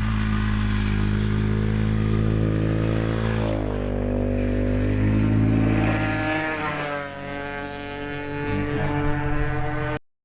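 Husqvarna SMR 510 supermoto's single-cylinder four-stroke engine running. Its pitch rises about four seconds in and shifts again about six seconds in. The sound cuts off abruptly near the end.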